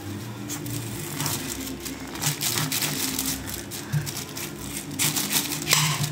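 Kitchen knife cutting through a raw chayote squash resting on aluminium foil: a series of short scrapes and crackles, with the foil crinkling under it. The strokes grow louder near the end as the squash splits in half. A faint steady hum runs underneath.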